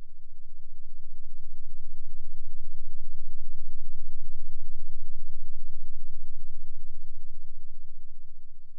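A low, steady bass drone with a fast flutter, swelling up over the first few seconds and fading back down near the end.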